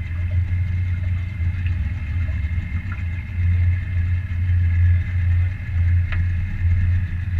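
Boat motor running steadily with a deep, even drone.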